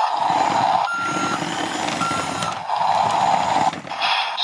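A toy remote-control CAT excavator plays its horrible built-in sound effect through a small speaker. It is a rough engine-like noise with two short truck-style reversing beeps about a second apart, over the lower whirr of its drive motors.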